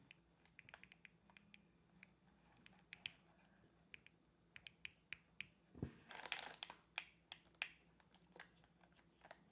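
Scattered faint clicks and taps of a small plastic fidget toy and its packaging being handled, with a dull thump about six seconds in followed by a brief rustle.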